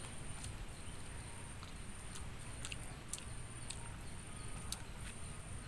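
Faint field ambience: a high, thin insect trill that breaks off and resumes, over a low steady rumble, with scattered faint ticks.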